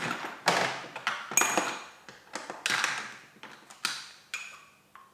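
Small hard parts clattering and clinking as spare gel blaster gearbox parts are rummaged through and handled. It is a string of sharp knocks, some with a brief metallic ring, growing sparser and fainter toward the end.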